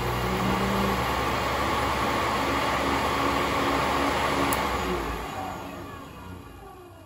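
Treadmill DC motor spinning a flywheel, running steadily at half speed, then a click about four and a half seconds in as the power is cut with a 2-ohm braking resistor across its leads; the motor's whir falls in pitch and fades as it brakes to a stop.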